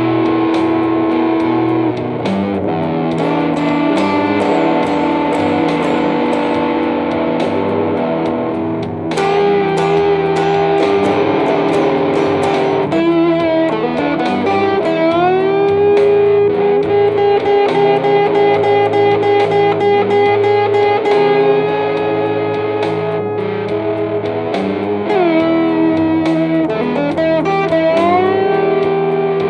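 Telecaster-style electric guitar played blues through a combo amp: picked single notes and chords with string bends that rise in pitch several times, and a faster, evenly picked passage in the middle.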